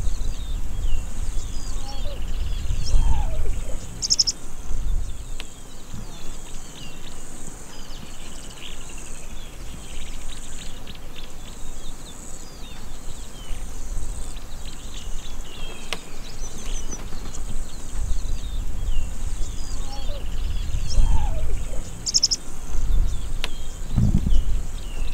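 Grassland ambience: many small bird chirps and a steady high insect drone, over a low rumble that swells a couple of seconds in and again near the end.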